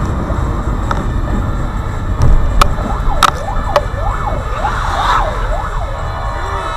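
Fire engine siren wailing up and down about twice a second, starting a few seconds in, heard from inside a car over the steady road rumble on a wet road. A few sharp clicks come from the windscreen wipers.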